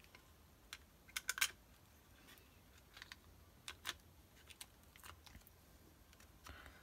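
Scattered light clicks and taps of a small LCD display board being handled and pressed into a plastic case, with a quick cluster of sharper clicks about a second in.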